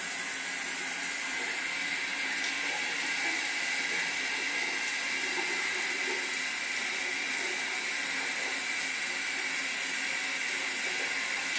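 Shower spray running: a steady hiss of falling water.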